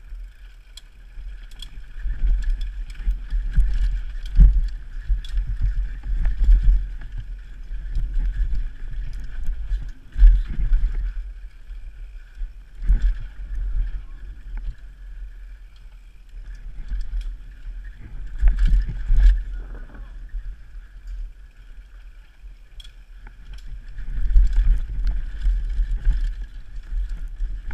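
Mountain bike riding fast down a rough dirt trail, heard from a camera on the bike or rider: bouts of low rumble with rattling clicks and knocks as it goes over bumps, and a steady high buzz throughout.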